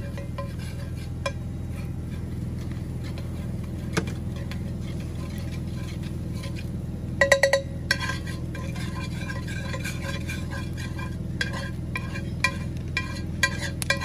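A metal spoon stirring and scraping a butter-and-flour roux in a cast-iron skillet, with scattered clinks against the pan and a quick run of four or five clinks about seven seconds in, over a steady low hum.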